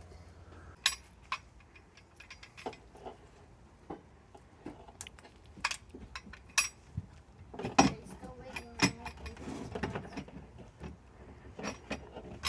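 Irregular sharp clicks, taps and clatter of metal lock parts, screws and a small screwdriver being handled while an RV entry-door lock is installed, busiest about two thirds of the way through.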